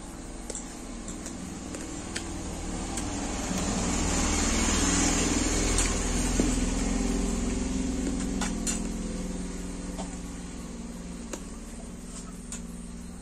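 A passing motor vehicle, its noise swelling to a peak about five seconds in and then fading away. Over it come a few sharp clicks of chewing.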